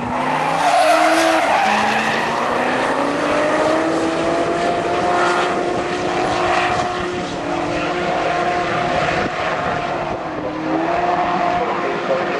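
Two drift cars, a Nissan Skyline and a Holden ute, running at high revs through a tandem drift, their engine notes held high and wavering up and down over a steady hiss of spinning, skidding tyres.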